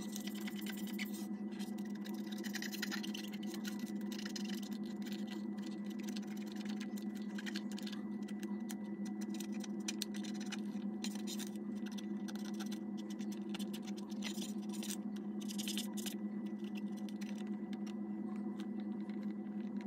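Cotton swab rubbing and scratching around the plastic buttons of a vintage clock radio, in short faint scratchy spells, over a steady low hum.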